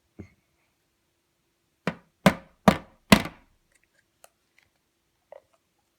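Four loud knocks in quick succession, about two seconds in, as a tub of slime is emptied out.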